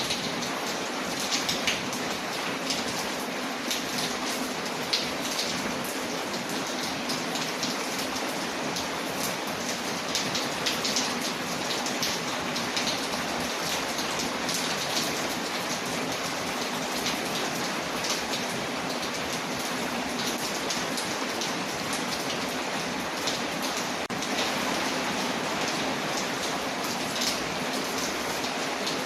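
Steady rain falling on a window, mixed with a fireplace fire crackling, which gives frequent small sharp pops over the even hiss of the rain.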